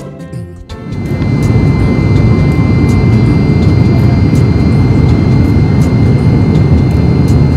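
Passenger airliner in flight, heard from inside the cabin: loud, steady engine and airflow rumble with a thin, steady high whine. A little music fades out just before the rumble rises, about a second in.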